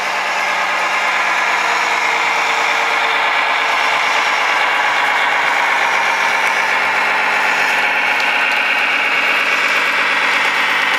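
Radio-controlled Mack dump truck driving, with a steady, truck-like engine drone.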